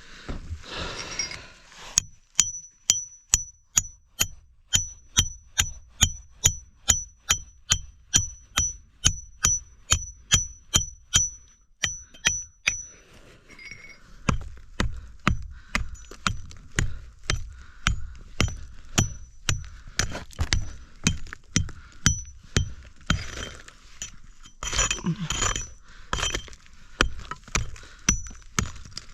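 Steel tool hammered against rock in a cave dig: a steady run of sharp metallic strikes, about two a second, each with a brief ring. They start about two seconds in, pause briefly near the middle, then carry on a little faster.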